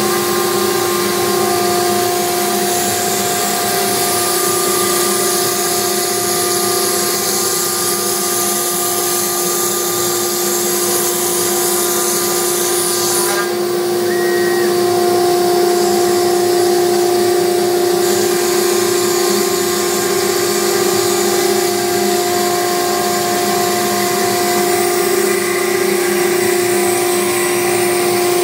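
Homebuilt MechMate CNC router cutting quarter-inch MDF: the spindle runs with a steady whine over the drone of the vacuum hold-down system. The high hiss changes abruptly about halfway through and the sound gets slightly louder.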